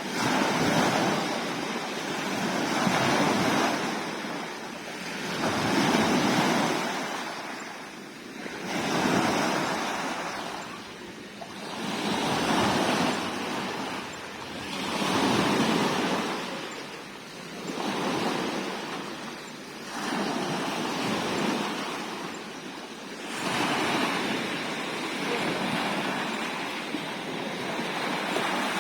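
Sea waves breaking and washing in, the surf noise swelling and fading about every three seconds.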